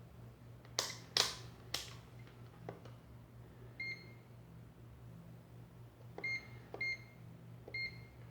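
Digital capacitance meter giving four short high beeps, with a few sharp handling clicks about a second in, over a steady low electrical hum.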